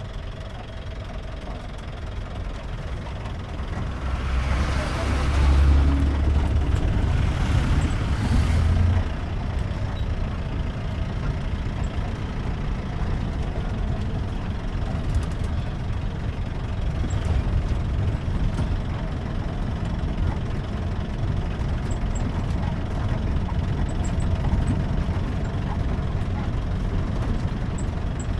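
Jeep engine running as the vehicle is driven along a road, a steady low rumble with road noise, louder from about four to nine seconds in.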